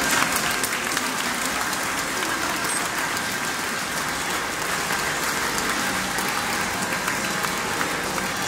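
A large crowd clapping steadily.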